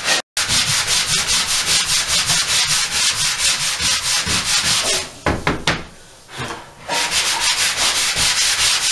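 Hand sanding pad rubbed back and forth over dried joint compound on a plaster wall, in a steady rhythm of strokes, several a second. The strokes pause for about two seconds near the middle, then resume.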